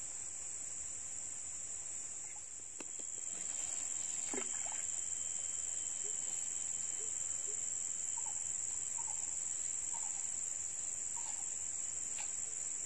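Steady high-pitched drone of an insect chorus, with a few faint short calls and ticks scattered through it.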